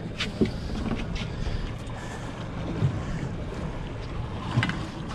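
Yamaha 200 hp outboard motor idling steadily, with wind on the microphone and a few light knocks.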